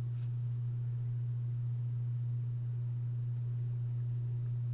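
A steady low-pitched hum, a single unchanging tone, with a few faint clicks at the very start and near the end.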